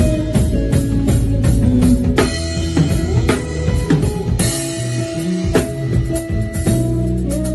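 Live band playing, with the drum kit to the fore: quick bass drum and snare hits over bass and keys.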